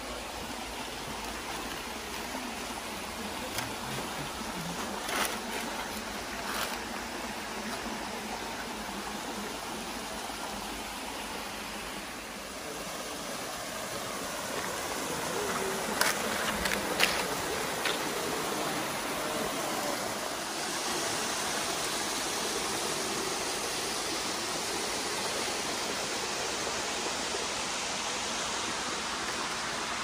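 Small waterfall cascading down a rock face into a pool: a steady rush of falling and running water that grows louder and brighter about halfway through. A few sharp clicks stand out over it.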